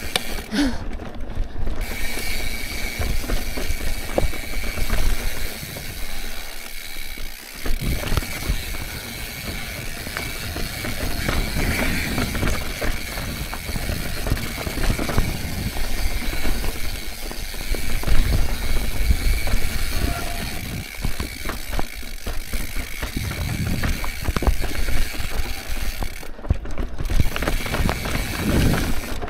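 Mountain bike riding a rough rocky trail: tyres rolling and bumping over rock, the chain and frame rattling, and the rear hub ticking while it coasts, over wind rumble on the microphone.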